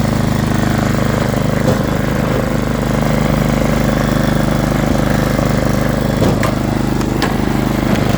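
Snow blower's small gas engine running steadily, restarted after its carburetor bowl was cleaned of the carbon that had clogged it.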